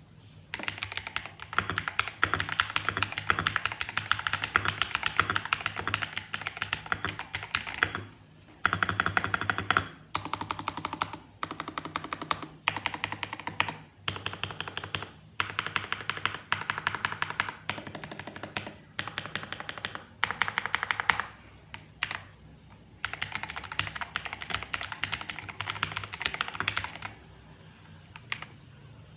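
Fast typing on a ZIFRIEND ZT104 gasket-mount mechanical keyboard: rapid runs of key clicks in bursts of a few seconds, broken by short pauses, stopping shortly before the end.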